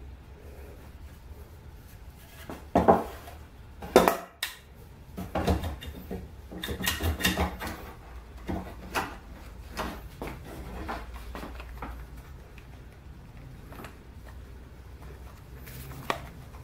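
Metal bar clamp being set and tightened on a wooden board against a workbench: two sharp knocks about three and four seconds in, then a run of quick metallic clicks and clatter, then a few scattered clicks over a low steady hum.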